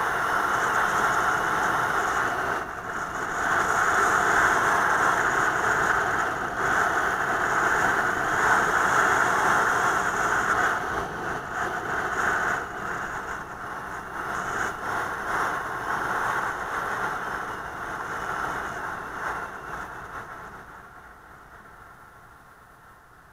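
Steady rushing noise of a vehicle in motion, heard through a dash camera's microphone: a mix of wind, road and engine noise. It fades out over the last few seconds.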